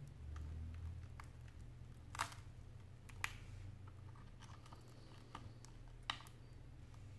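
Faint crackling and small ticks as a metal pry tool works along the edge of a cracked iPad 4 touchscreen, parting the glass from its adhesive, with three sharper snaps about two, three and six seconds in.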